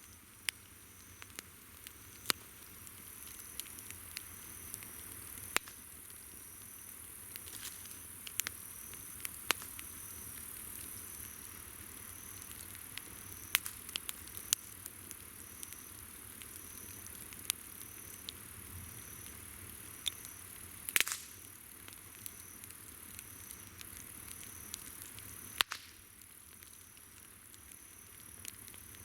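Wood campfire crackling, with sharp irregular pops and a couple of louder cracks. Insects chirr steadily in the background, with a faint high chirp repeating about once a second.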